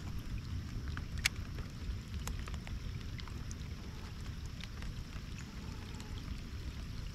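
Low, steady wind rumble on the microphone, with a few scattered sharp ticks at irregular intervals.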